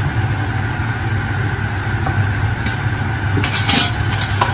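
Steady mechanical hum of a kitchen appliance fan running, with a brief scrape of a wooden spoon stirring in a frying pan about three and a half seconds in.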